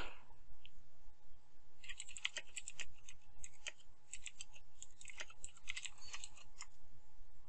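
Typing on a computer keyboard: a quick run of key clicks with brief pauses, starting about two seconds in and stopping about two-thirds of the way through.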